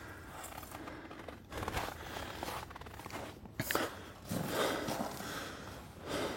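Footsteps on snow, a few irregular steps.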